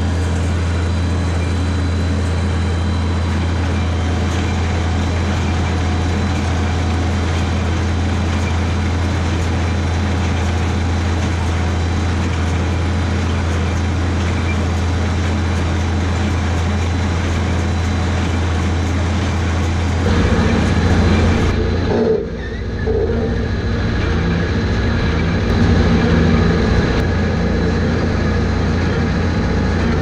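Tractor engine running steadily while it pulls an International small square baler through a windrow of grass hay. About two-thirds of the way through, the sound turns fuller and lower, with a short dip a couple of seconds later, then runs on steadily.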